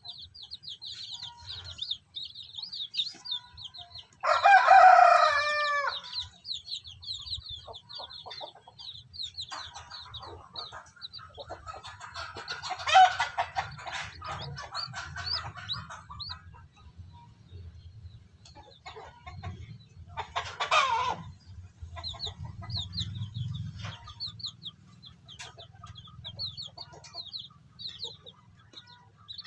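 Newly hatched native chicks peeping in rapid, high cheeps, with a rooster crowing loudly about four seconds in. Further chicken calls come midway and briefly again around twenty seconds in.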